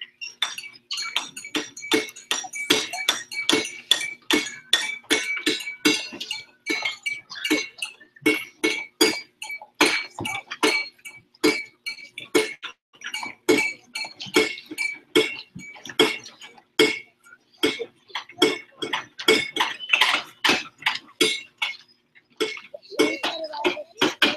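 Wheelbarrows struck as percussion instruments: quick, uneven clanking strikes, a few a second, over a steady ringing tone.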